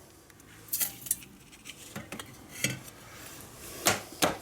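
Light taps and clinks of kitchenware against a container as ground aspen bark powder is tipped in. There are several short, sharp taps, and the two loudest come near the end.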